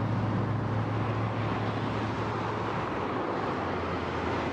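Street traffic noise: a steady rush with a low vehicle engine hum that fades away in the first second or two.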